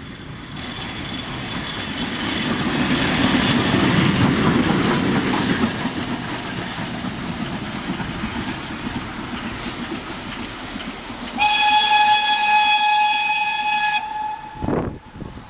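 Steam locomotive No 85 'Merlin', a GNR(I) V class 4-4-0 compound, running along the line with the steady noise of its exhaust and running gear, loudest about four seconds in. About eleven seconds in, its steam whistle gives one steady blast of about two and a half seconds.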